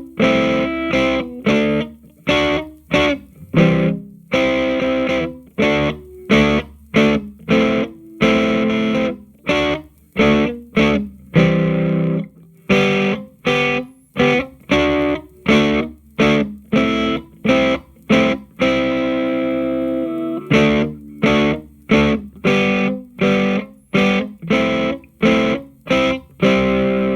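Electric guitar played through a Hughes & Kettner Attax Metroverb 50-watt transistor amp with a 12-inch Celestion speaker. It plays a riff of short staccato chords, each cut off sharply, with a few chords left to ring out.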